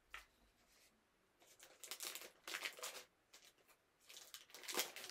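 Packaging crinkling and rustling as it is handled, in a few short bursts, the loudest near the end.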